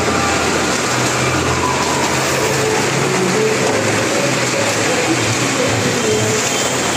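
Several car engines running hard as the cars circle the vertical wooden wall of a well-of-death ring: a loud, steady din.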